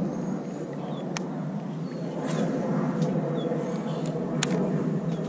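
Steady outdoor background noise with a few faint, short bird chirps over it and two sharp clicks, one about a second in and one near the end.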